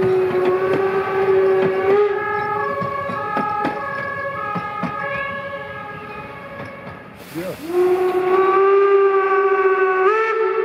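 Steam locomotive whistle blowing long blasts that shift in pitch, with wheel clicks from the coaches rolling past. About seven seconds in there is a short burst of steam hiss, then a new blast that starts low, rises, and holds.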